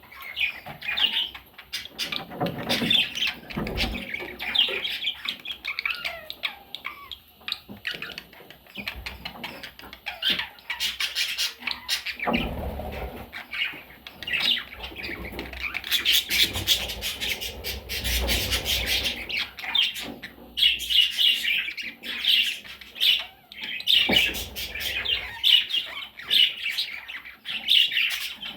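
Baby budgerigars chirping and squawking in a continuous rapid chatter of high calls, with a few low thumps and clicks among them.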